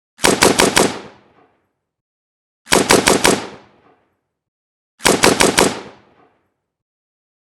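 AK-47 assault rifle firing on full auto in three short bursts of about five rounds each, roughly two and a half seconds apart. Each burst trails off in a brief echo.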